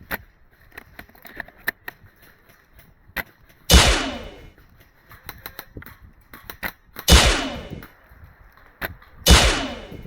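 Three loud gunshot bangs a few seconds apart, each with a long echoing tail that dies away, with faint scattered clicks between them.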